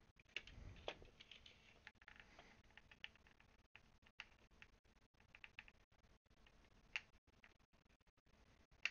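Faint, scattered small clicks and taps of hands handling wires and a small switch board inside an open plastic electronics case, with a sharper click about seven seconds in and another at the very end.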